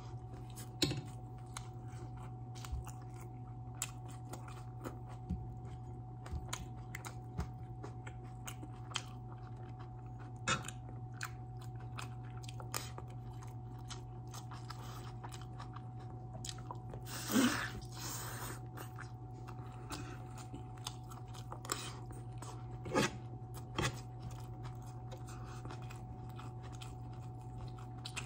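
Close-up chewing and biting of roasted turkey leg and rice, with scattered wet smacks and clicks of a spoon. A louder mouth noise comes about two-thirds of the way through. A steady low hum runs underneath.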